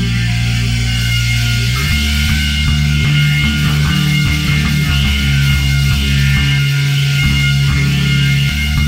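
Heavy stoner-prog rock music: distorted guitar and bass hold long low notes, and the bass line moves to a new note about two seconds in.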